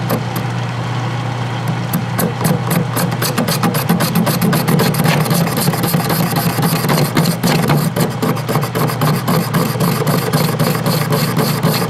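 Metal lathe cutting a cast iron casting with a carbide tool: a steady motor hum under a dense, irregular crackle of chips breaking off the iron, which starts about a second in and carries on.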